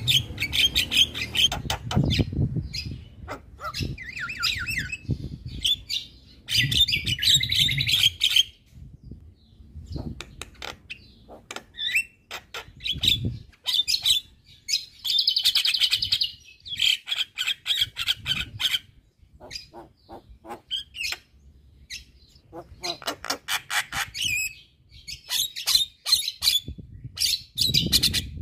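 Javan myna singing vigorously: a rapid chatter of harsh squawks, clicks and buzzy trills in bursts of a second or two, broken by short pauses.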